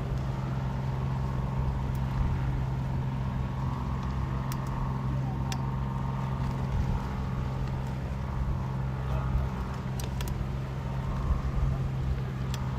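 A steady low mechanical hum under a gusting rumble of wind on the microphone, with a few faint clicks.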